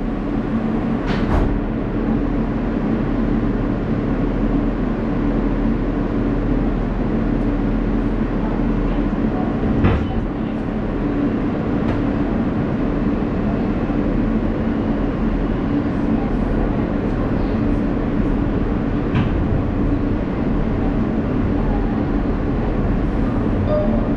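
Steady interior noise of an R160A New York City subway car, with a constant low hum and a few sharp knocks from the car about 1, 10 and 19 seconds in.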